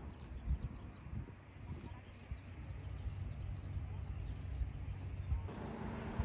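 Small birds chirping, many short high calls over a low outdoor rumble with a few soft low thumps. Near the end the background noise rises suddenly and a low steady hum comes in.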